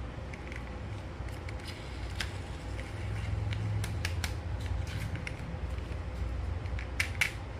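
Light clicks and taps of a plastic toy being handled, scattered through, with two sharper clicks near the end, over a steady low rumble.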